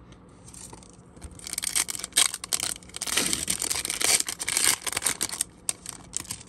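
Foil wrapper of a hockey trading-card pack crinkling and tearing as it is ripped open and the cards are pulled out. The dense crackling starts about a second and a half in, lasts about four seconds, then thins to a few last crackles.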